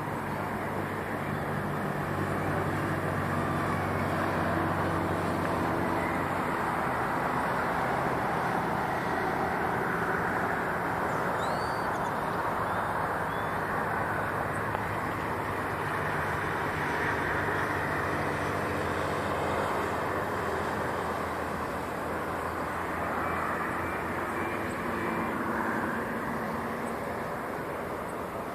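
City traffic ambience: a steady hum of passing traffic with a low engine drone, and a few short bird chirps about eleven to thirteen seconds in.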